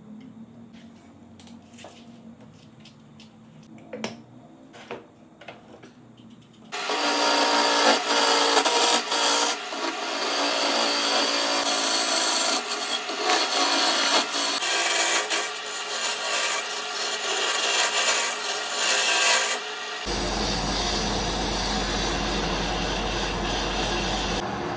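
A few light clicks and knocks, then a hollowing tool cutting into the spinning maple wall of a vase on a wood lathe. It makes a loud, rough scraping that rises and falls as the cut goes on. About twenty seconds in it gives way to a steadier noise with a low hum.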